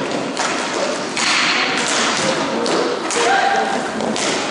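Inline hockey play on a hard floor: repeated knocks and thuds of sticks, puck and boards over a steady noisy background that echoes in the hall.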